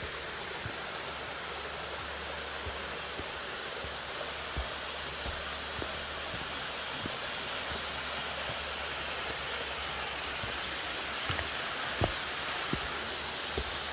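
Steady rush of falling water from a waterfall, with a few faint, scattered knocks.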